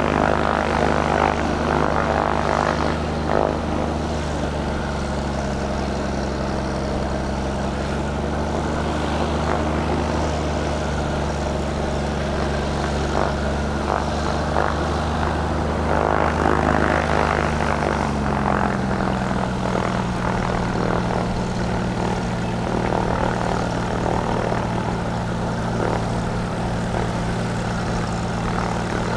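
Cessna 185 Skywagon floatplane's six-cylinder piston engine and propeller running steadily as it taxis on the water; the engine note drops a little about two-thirds of the way through as the power eases.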